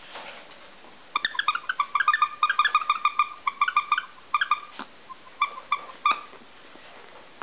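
Five-week-old petite labradoodle puppy giving a rapid run of short, high whimpering squeals, several a second, starting about a second in, then thinning out to a few scattered ones and stopping about six seconds in.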